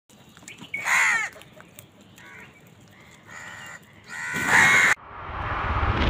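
A flock of house crows cawing harshly, with loud caws about a second in and again about four and a half seconds in and fainter ones between. At about five seconds the calls cut off and a rising whoosh sound effect swells in.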